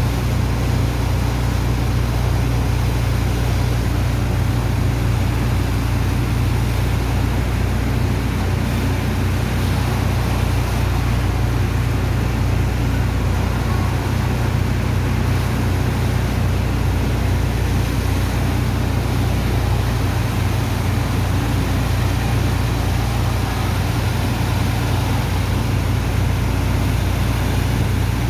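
Engine of a sand dredger's pump running steadily at constant speed, a loud deep hum with an even rushing noise over it.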